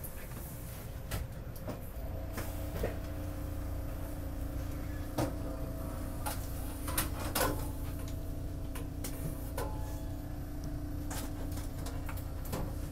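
Steady low drone and hum inside a stationary Market-Frankford Line subway car, from its ventilation and onboard equipment, with scattered sharp knocks and clicks.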